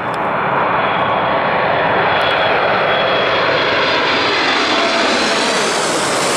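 Boeing 747-8 freighter passing low overhead on final approach. Its four GE GEnx-2B turbofans make a loud, steady jet roar with a high fan whine for the first few seconds, and the noise turns hissier near the end as the jet goes directly over.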